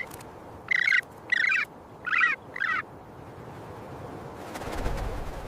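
Four short, harsh bird calls in quick succession, starting about a second in, over a steady low background noise that swells near the end.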